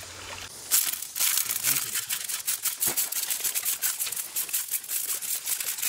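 Wet gravel and pebbles clicking and rattling against each other and the perforated plastic screen of a fossil-sifting screen as a hand rakes through them, a rapid run of small clicks starting about a second in.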